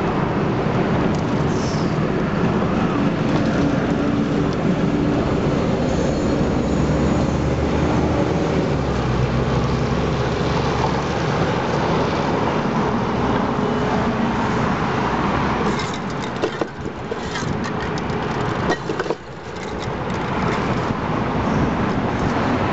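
Steady city traffic noise: a continuous road rumble with running vehicle engines. In the last third there are a few short clicks and knocks, and the level briefly dips twice.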